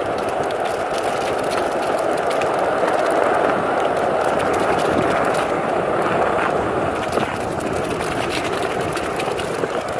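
Skateboard wheels rolling fast downhill on a paved path: a steady rough rumble with many small clicks over bumps and debris.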